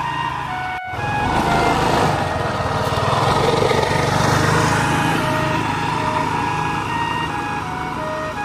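A motor vehicle running steadily, with a melody of background music over it; the sound swells for a few seconds after a brief break about a second in.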